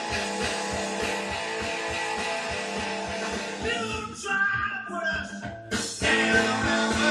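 Rock music with guitar and singing playing from a vinyl record on a Dual 721 direct-drive turntable. The band thins out for a couple of seconds past the middle, then comes back in fuller and louder.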